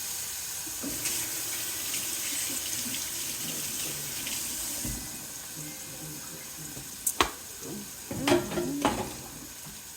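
Banana slices frying in butter in a pan, a steady sizzle, with a sharp clack about seven seconds in.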